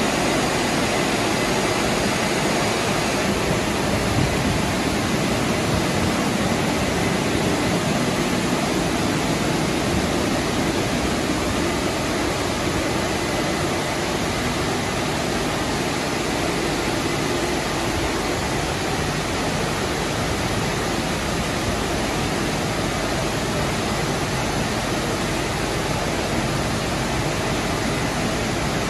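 Automatic car wash tunnel machinery running: a loud, steady rushing noise of spray and air against the car, changing slightly about three seconds in.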